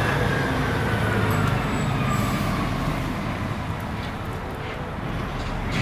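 A passing road vehicle: a steady rumble and road noise with a thin whine sliding slowly down in pitch, fading as it goes.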